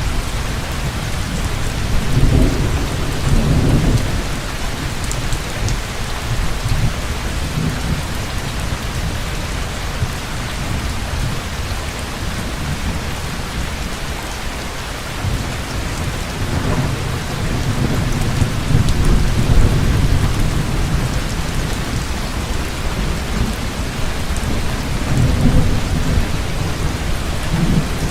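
Heavy rain falling steadily, with rolling thunder rumbling low three times: about two seconds in, through the middle and near the end.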